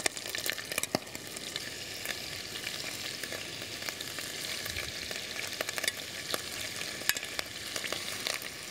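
Beef cubes searing in hot melted butter in a pot, a steady sizzle with frequent sharp pops as the meat is browned.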